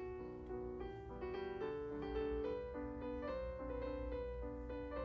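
Background piano music, a melody of single notes one after another.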